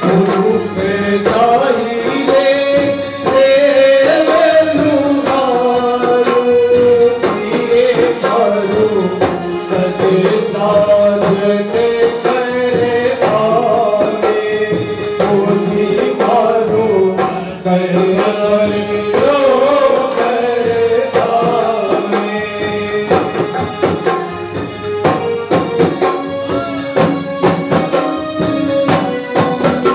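Phagan folk music: a bending melody line over a steady, driving beat of hand percussion with jingles.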